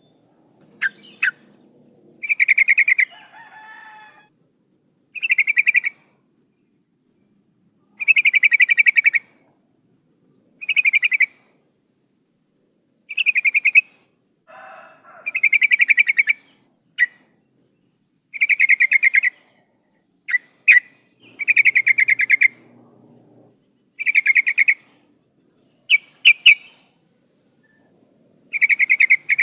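Yellow-vented bulbul (trucukan) calling: a short, rapidly pulsed burst about a second long, repeated every two to three seconds, about ten times, with a few brief sharp chirps in between. The uploader labels it a female calling for a male.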